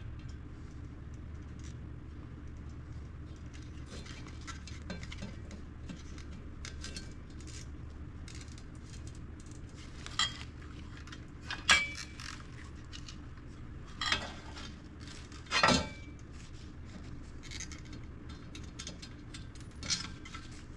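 Metallic clinks and clicks of tools and small parts being handled during work on car wiring. A few louder sharp clinks come in the second half, over a steady low hum.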